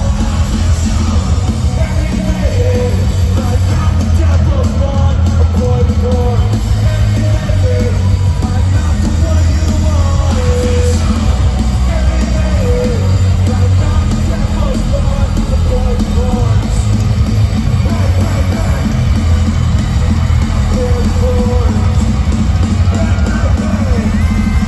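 Loud live rock music: a band with heavy drums and bass, and a singer's voice over it.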